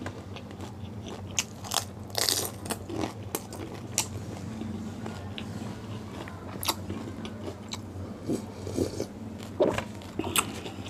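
Crisp pani puri shells crunching as they are bitten and chewed close to the microphone, in sharp crackles every second or two with a quick cluster about two seconds in.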